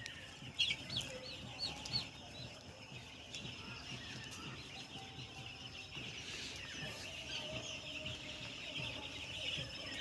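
A large flock of six-day-old broiler chicks peeping continuously in a high-pitched chorus, with a handful of louder single cheeps in the first couple of seconds.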